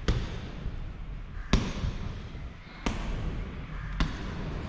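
Punches landing on a punching bag: four hard thuds about a second and a half apart, the one about a second and a half in the loudest.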